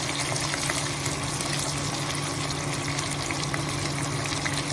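Sliced onions sizzling in hot oil with cumin seeds: a steady frying hiss with small crackles, over a steady low hum.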